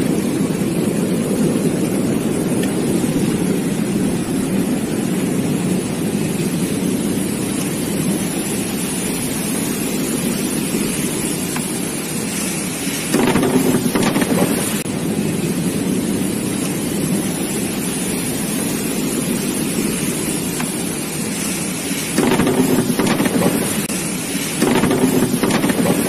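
Bubble washing machine running: air bubbling up through the water tank, with a steady rushing, churning noise. It gets louder for a couple of seconds about halfway through and twice more near the end.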